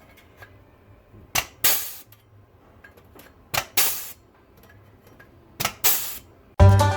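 A hole punch going through car-body sheet steel three times, each punch a sharp click followed by a short hissing burst, about two seconds apart. Banjo music starts near the end.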